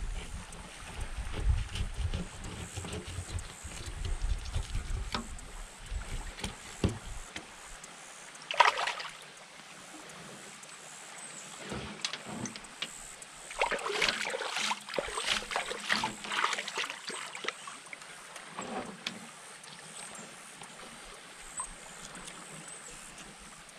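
Scattered scrapes and rustles of a bowfin being handled and cut with a fillet knife: one sharp scrape about nine seconds in, and a cluster of them from about 13 to 17 seconds. Wind rumbles on the microphone for the first several seconds.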